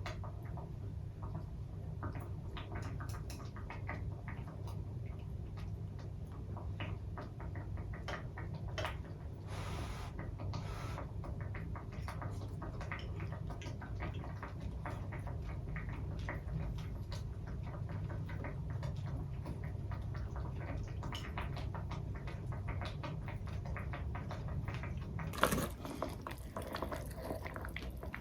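Eating at a table: many light clicks and taps of utensils on dishes, over a steady low hum. A louder clatter comes near the end.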